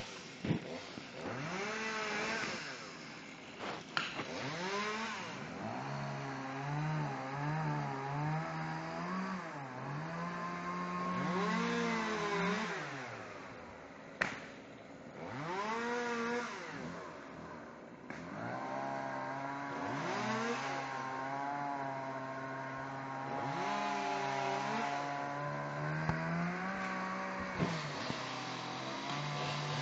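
Chainsaw engine revving up and falling back to idle over and over, with steady idling stretches between the revs. There are two sharp knocks, one about four seconds in and one about fourteen seconds in.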